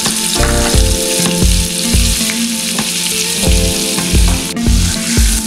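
Butter melting and foaming in hot oil in a non-stick frying pan, sizzling steadily.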